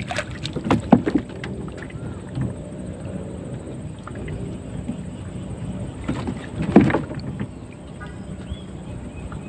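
Knocks and clatter from a bubu fish trap being handled in a small boat, with a baung catfish just caught inside, over a steady low hum. The loudest knocks come about a second in and again near the end.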